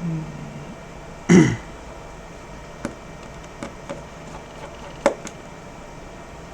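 A person clears their throat once, loudly and briefly. It is followed by a few faint, sharp clicks from small repair tools being handled.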